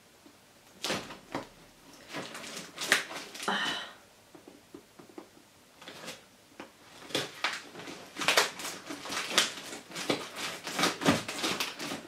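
Large kitchen knife stabbing and sawing through the packing tape and cardboard of a parcel: a run of short scratchy rasps and knocks, sparse at first with one longer scrape, then coming thick and fast in the second half.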